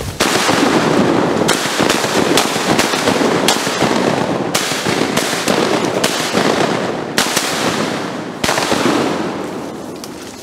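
A rapid volley of shotgun blasts from several hunters firing at once, the shots coming close together and overlapping for about eight seconds, then falling off near the end.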